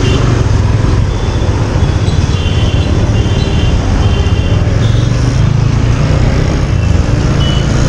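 TVS Apache single-cylinder motorcycle riding through dense city traffic: a steady low engine and road rumble, with several brief high beeps from the traffic around it.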